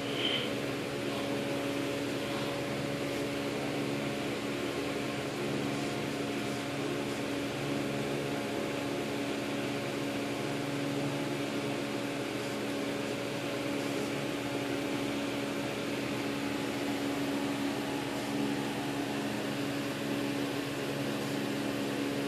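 Steady mechanical hum with a constant low drone, like a fan or air-conditioning unit running, unchanged throughout. A single short high squeak sounds just after it begins.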